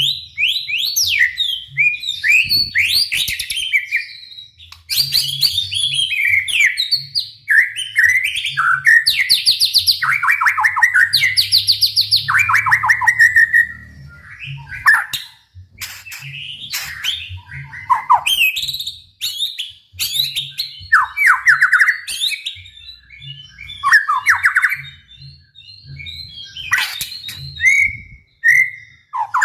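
White-rumped shama (murai batu) singing loudly: a varied run of whistled phrases and quick up-and-down sweeps, broken by fast rattling runs of repeated notes, with short pauses between phrases.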